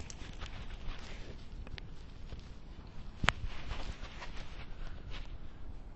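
Footsteps on a concrete walkway, with a steady low background noise and one sharp click a little past halfway.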